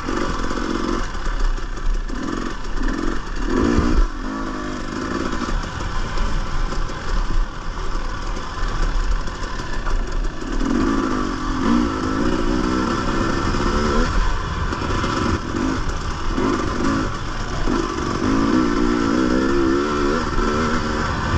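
Dirt bike engine revving up and down as the throttle is worked over rough, muddy trail, its pitch rising and falling in repeated surges. There is a single sharp knock about four seconds in.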